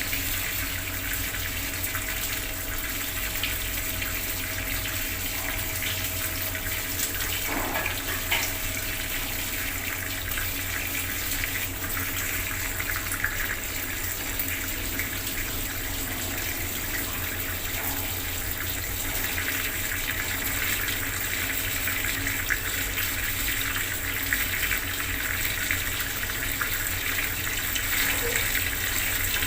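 Bathroom water tap running steadily, its stream splashing into the water below with a few faint splashes and drips.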